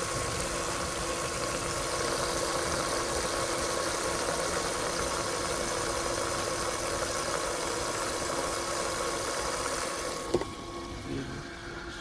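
LG top-loading washing machine filling: water pours and swirls in the drum with a steady rushing. About ten seconds in there is a sharp click as the lid shuts, and the sound turns quieter and muffled.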